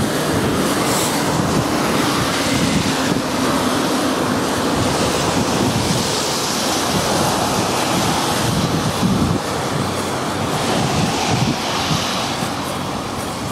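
Wind buffeting the microphone, a steady rushing noise, over the sound of road traffic passing.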